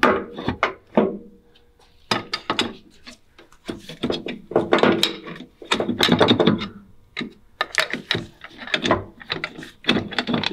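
Hand tools knocking and clanking on a Lexus GX470's drive shaft as it is worked loose for removal: a run of irregular sharp knocks with a short lull after the first second.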